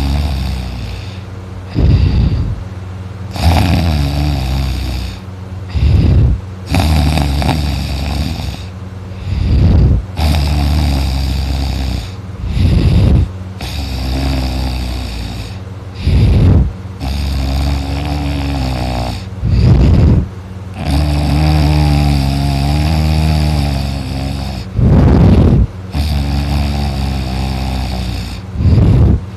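A man snoring heavily in deep sleep. Loud, rasping snores come about every three seconds, between longer, wavering, pitched moans on the breath.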